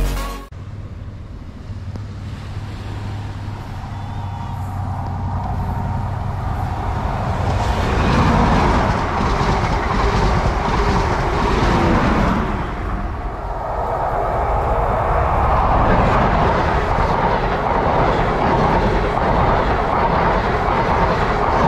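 Diesel passenger trains running past on the seawall line: a Great Western Railway train's engine and wheel rumble swells, its engine tone falling as it goes by near the middle, then a CrossCountry train's rumble builds again close by.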